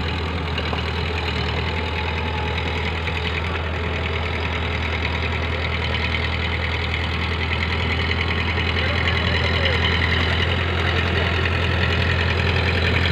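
Powertrac Euro 55 tractor's diesel engine running under load as it pulls a rotavator through a flooded paddy field: a steady low drone that grows slowly louder as the tractor comes closer.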